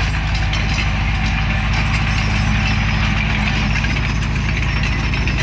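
Bulldozer's diesel engine running at a steady speed: a low drone with a fast, even pulse.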